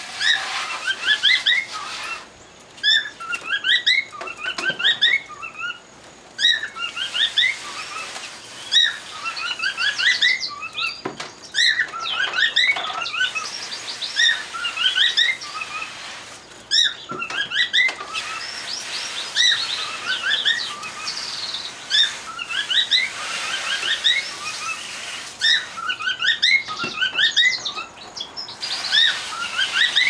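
Several domestic canaries singing in a cage: continuous fast strings of short, rising chirping notes overlapping one another, with a few short clicks among them.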